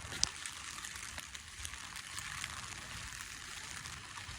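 Rain falling: a steady hiss with scattered ticks of drops.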